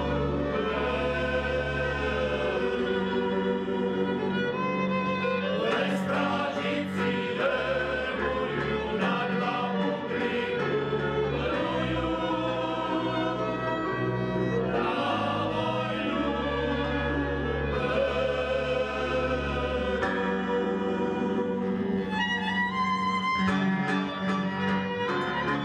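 Male choir singing a folk song in unison and harmony, accompanied by a small folk band of violin, clarinet and double bass. Near the end the voices stop and the band plays on alone, the fiddle leading.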